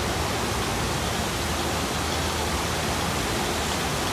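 Water rushing steadily down a log flume ride's steep drop chute.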